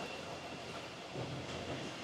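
Steady whirring noise of the cooling fans at a Bitcoin mining site, with a faint high tone held throughout and a few light ticks.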